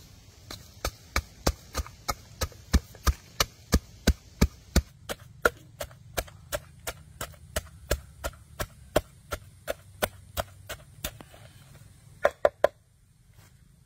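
A wooden pestle pounding red chilies and garlic in a wooden mortar: evenly spaced knocks, about three a second, stopping about 11 seconds in. Three quick, louder knocks follow near the end.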